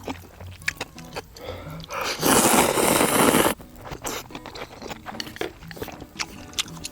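Someone eating ramyeon: small wet chewing clicks, then a long loud slurp of noodles for about a second and a half starting about two seconds in. Soft background music plays under it.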